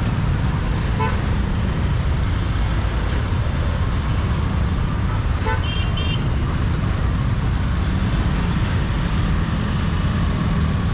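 Road traffic with a steady low rumble and short vehicle horn toots: one about a second in, and two more around the middle, the last one higher-pitched.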